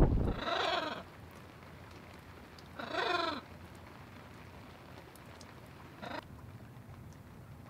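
Pet macaw squawking: two drawn-out calls, each rising and falling in pitch, a couple of seconds apart, then a short squawk about six seconds in, over a faint steady hiss of rain.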